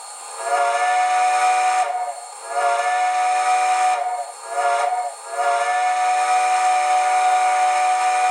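Recorded chime steam whistle, the TCS WOW Sound decoder's 'Unknown whistle 3', played through a model locomotive's speaker. It gives four blasts, long, long, short, long, which is the grade-crossing signal, over a steady hiss.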